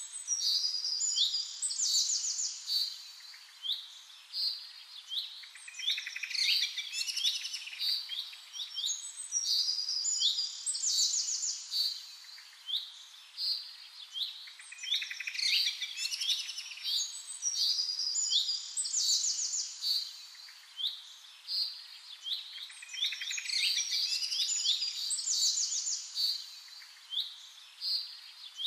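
A chorus of several birds chirping and singing: a continuous, overlapping run of short high-pitched chirps and quick sweeping notes.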